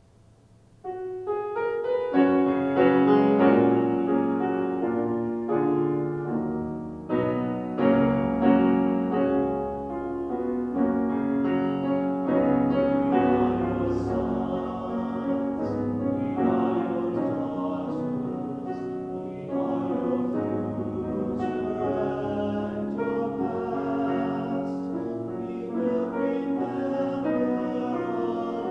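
Grand piano playing an introduction in full chords. A mixed choir joins in singing about halfway through, with the piano accompanying.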